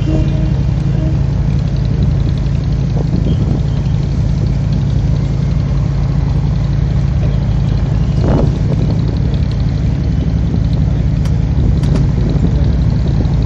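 A dhow's inboard engine running steadily at a constant low drone, heard from on board, with a few faint ticks near the end.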